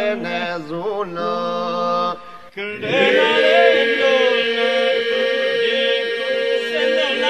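Chant-like folk singing. An ornamented vocal line comes first, then a brief break a little over two seconds in. From about three seconds in, a steady held drone sounds beneath the melody.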